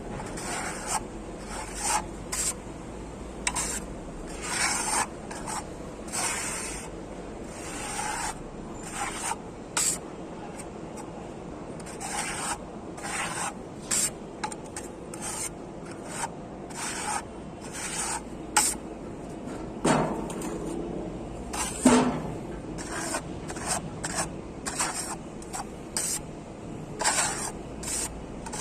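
Plastering tool scraping and rubbing across a wall in short, irregular strokes, working a fine-grain fibre-reinforced skim coat. Two louder knocks come about two-thirds of the way through.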